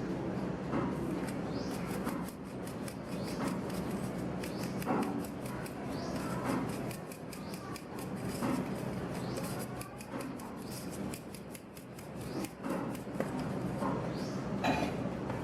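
Repeated scraping strokes, roughly one a second, with light clicks over a steady low hum, typical of a kitchen utensil working in a bowl or pan.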